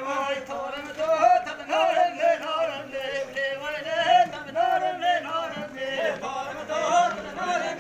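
Kurdish folk dance music for a halay line dance, with a man singing over a steady droning accompaniment.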